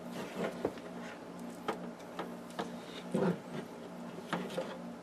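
Scattered small clicks and rustles of hands handling power wires and connectors, over a low steady hum.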